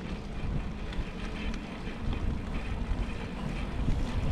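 Steady low wind rumble on the microphone during a bicycle ride, with faint ticks and rolling noise from the moving bike.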